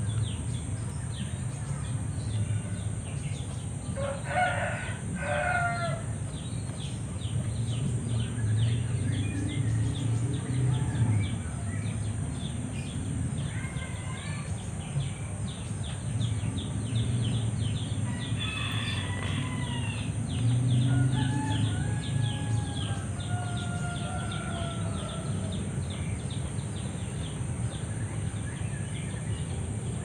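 Roosters crowing a few times, with two short crows about five seconds in and a long crow later whose tail slides down in pitch, over a steady low rumble.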